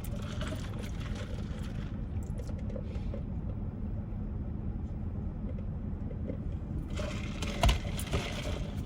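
Steady low rumble of a car with its engine running, with bursts of crackly chewing and eating noises at the start and again near the end.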